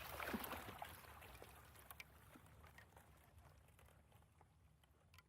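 The fading tail of a water splash: scattered drips and small patters of water settling, dying away to near silence.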